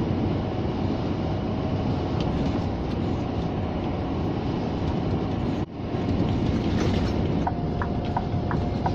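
Scania G460 truck's 13-litre straight-six diesel and its road noise, heard from inside the cab as a steady drone while cruising on the highway. Near the end the turn signal starts ticking at an even pace.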